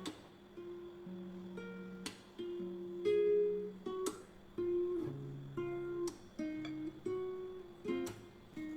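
Background music: a plucked acoustic guitar or ukulele tune, notes and chords changing about every half second.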